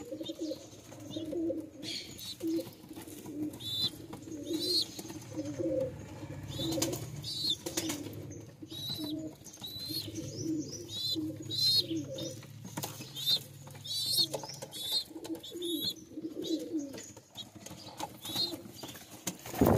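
Domestic pigeons cooing over and over, low repeated notes, with scattered light taps of beaks pecking at seed grain. Short high chirps from other birds come in now and then.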